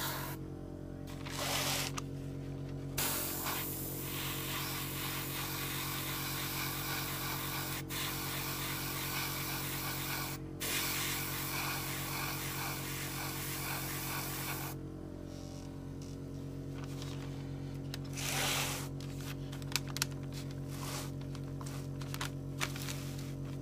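Airbrush spraying flat black acrylic paint: a hiss of air and paint in long passes for the first half, then many short, rapid bursts as the trigger is pulsed. Under it runs the steady hum of the airbrush compressor.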